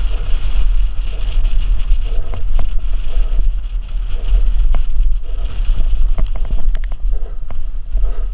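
Wind buffeting the microphone of a helmet camera on a fast downhill mountain-bike run, with the bike's knocks and rattles as it rolls over a dry, bumpy dirt trail.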